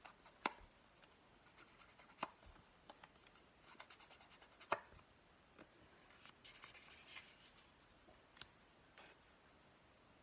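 Small paper pieces being inked up: a few sharp taps, the loudest about half a second, two seconds and nearly five seconds in, with light scratching and rubbing of ink on paper between.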